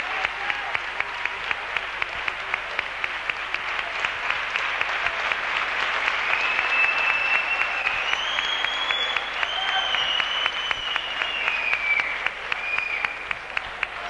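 Steady rhythmic clapping, about three to four claps a second, kept up throughout. Over the middle a high, wavering tone rises and falls like a whistled tune.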